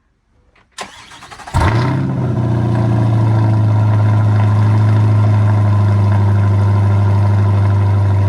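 Chevrolet C8 Corvette's V8 being started: the starter cranks briefly from just under a second in, the engine catches loudly about a second and a half in, then settles into a steady idle.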